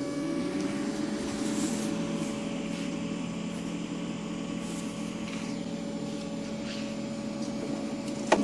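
Cooling fans of a Pangoo Jet A3 UV flatbed printer and its UV LED lamp, just switched on, running with a steady hum of several tones. A sharp click near the end.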